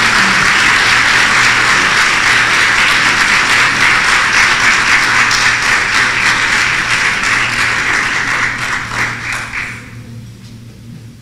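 A roomful of people applauding loudly: many hands clapping together in a dense patter that thins to a few last claps and dies away about ten seconds in.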